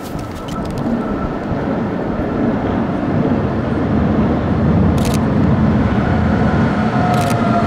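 Tatra T4D tram set approaching along the street: a steady low rumble of wheels on rails that grows slightly. A thin steady whine joins in for the last couple of seconds.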